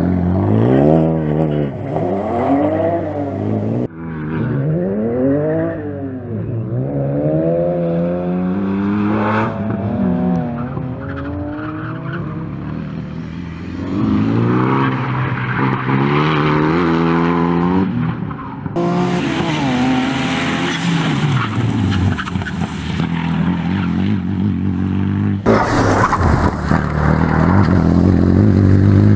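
Renault Mégane RS's turbocharged four-cylinder engine revving hard, its pitch climbing and dropping again and again through gear changes and corners, with tyres squealing at times. The sound jumps abruptly several times as the view cuts between trackside positions.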